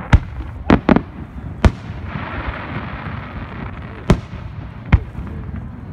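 Aerial fireworks shells bursting: six sharp bangs, three close together in the first second, then three more spaced out over the next few seconds, with a steady rushing background between them.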